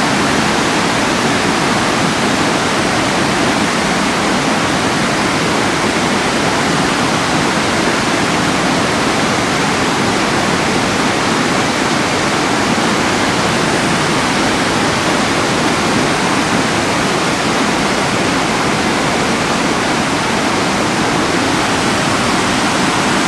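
Fast mountain stream rushing over rocks in white-water rapids: a steady, loud rush of water that does not let up.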